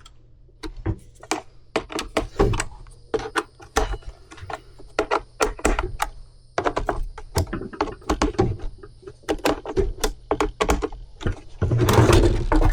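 Plastic parts of a Stihl leaf blower being handled and fitted together by hand: a run of irregular clicks and knocks, with a louder scraping rustle near the end.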